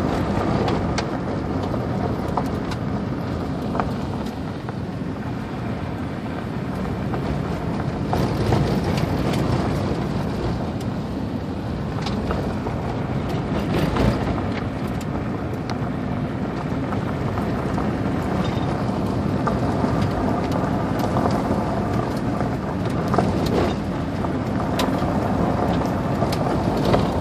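Subaru Loyale driving a gravel road, heard from inside the cabin: steady tyre, road and engine noise, with scattered sharp ticks and knocks of gravel against the car.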